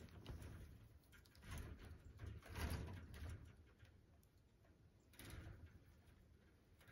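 Near silence with faint rustling and handling noises as chain-link fencing is tied onto a wooden frame, swelling softly about two seconds in and again near five seconds.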